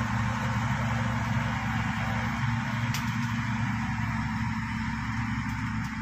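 Shantui SD16 crawler bulldozer's diesel engine running steadily under load as it pushes a blade full of soil and brush, with a couple of brief clicks.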